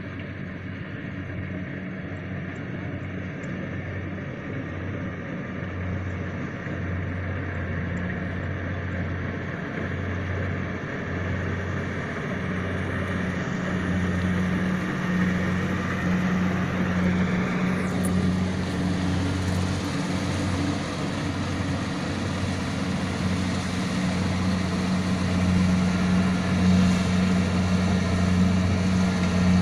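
Kubota DC70PH+ rice combine harvester running with a steady engine hum and mechanical noise, gradually getting louder.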